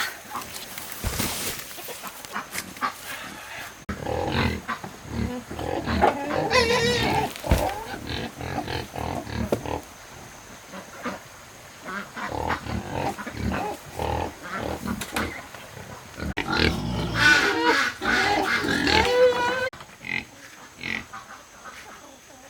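Farm animals calling, with wavering, pitched cries in two busy stretches, about four seconds in and again past the sixteen-second mark.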